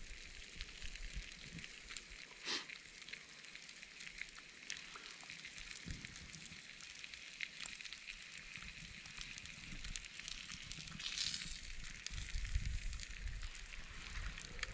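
Wood campfire crackling softly with a steady hiss and scattered small ticks. There is one sharper pop about two and a half seconds in and a short louder hiss at about eleven seconds.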